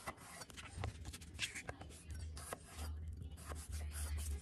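Chef's knife cutting raw potatoes into wedges on a wooden cutting board: a string of light, irregular clicks and scrapes as the blade goes through and taps the board. A low hum comes in underneath about halfway through.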